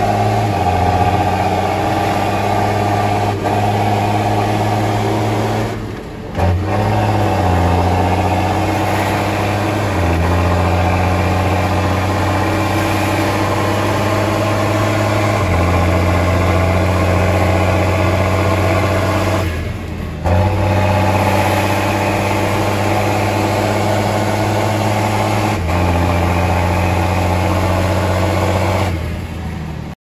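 Heavy diesel farm engine running steadily under load, its pitch stepping up and down every few seconds.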